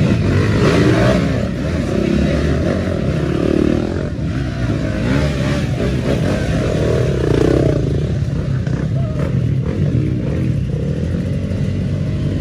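Dirt bike engine running hard, its pitch repeatedly rising and falling as the throttle is worked.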